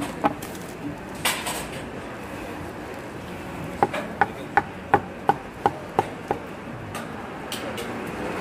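Knife chopping sundae on a cutting board: a run of about eight quick strikes, a little under three a second, each with a short ringing tick. A couple of separate knocks come in the first second or so.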